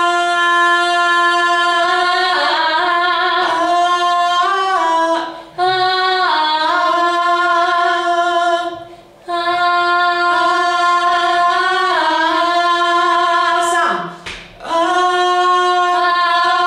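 A single voice singing unaccompanied: long held notes with short slides and turns between pitches, broken by three brief pauses for breath.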